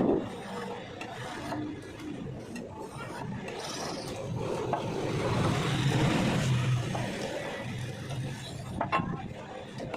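Grass cutter blade being sharpened by hand: metal rasping and scraping along the edge, growing louder in the middle, with a sharp click at the start and another near the end.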